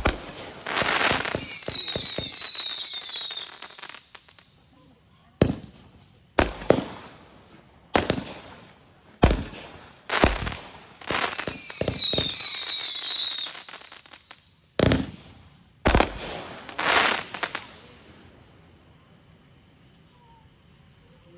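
Consumer fireworks going off: two long hissing bursts with falling whistles, separated by a string of sharp bangs. The bangs stop a few seconds before the end.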